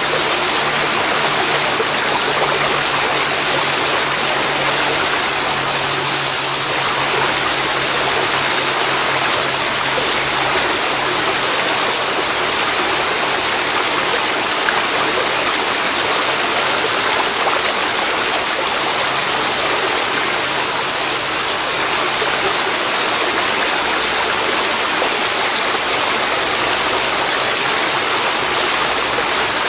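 Waterfall pouring into a river: a steady, loud rush of falling and flowing water.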